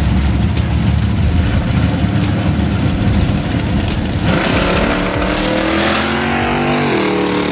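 Vehicle engine running hard with a heavy low rumble. About four seconds in, a steady engine note comes through, and it drops in pitch shortly before the end.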